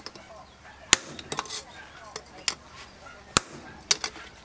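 Hand hammer striking a chisel held in tongs, cutting through a steel cleaver blank forged from a chainsaw bar on an anvil: about half a dozen uneven metal-on-metal blows. The loudest comes about three and a half seconds in and rings briefly.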